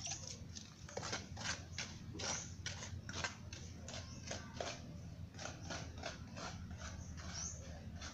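Cement mortar being scooped and scraped by hand in a metal basin: a quick, irregular run of short scrapes and clicks, over a steady low hum.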